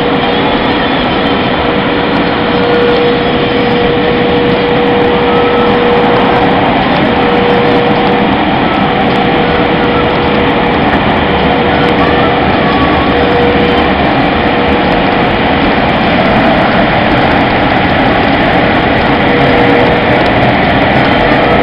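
Automatic car-wash machinery running, heard from inside the car: a loud, steady rushing noise with a constant hum.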